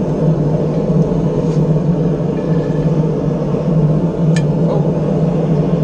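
Blacksmith's forge running with a steady low rumble, with a single light click about four and a half seconds in.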